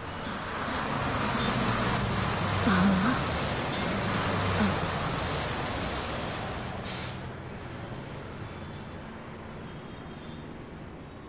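A passenger bus pulling away: engine and road noise that swell over the first couple of seconds and then slowly fade as it leaves.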